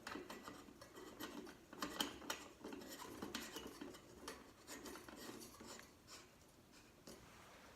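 Faint clicks and rubbing of an E27 LED bulb being screwed into a lamp socket by hand, the glass and plastic bulb scraping on the metal threads. The small ticks come thick and irregular, then die away about six seconds in.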